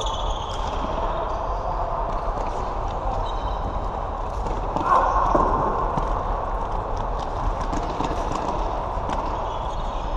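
Floorball being played in a sports hall: a scattered clatter of stick-and-ball knocks and running footsteps on the hall floor, over a steady low mains hum, with one louder moment about five seconds in.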